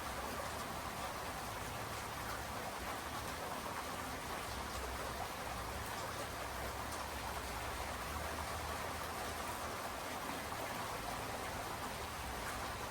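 Steady rainfall, with faint scattered drop ticks over an even hiss.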